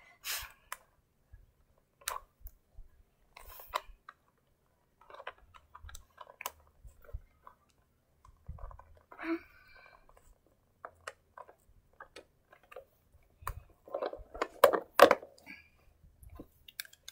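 Plush toys being picked up and moved about by hand: scattered soft rustles, taps and small clicks, with a busier stretch of handling noise about three-quarters of the way through.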